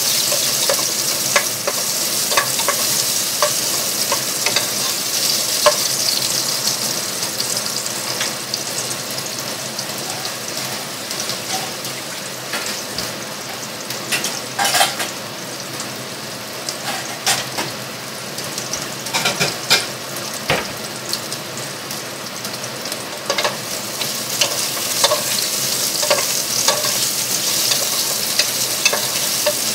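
Dried mushrooms and garlic cloves sizzling in hot oil in a non-stick pan, with a wooden spatula stirring and scraping against the pan now and then. The sizzle eases in the middle and picks up again near the end.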